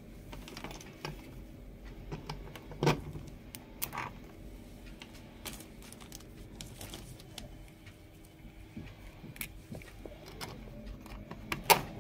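Metal crocodile clips on test leads clicking and rattling as they are clipped onto the terminal studs of a resistance block. A few sharp clicks are scattered through, the loudest near the end.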